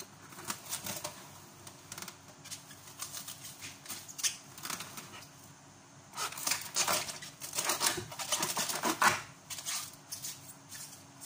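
Plastic cling film crinkling and rustling as it is pulled off the roll and stretched over a bowl, with the densest crackling in the second half as it is pressed down around the rim.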